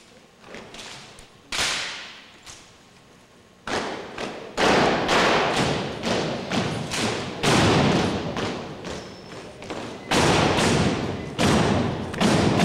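Sharp strikes from an armed drill team's routine (rifles slapped, handled and struck, boots stamping) echoing through a gymnasium. A few separate strikes come first, then from a few seconds in a fast string of loud ones.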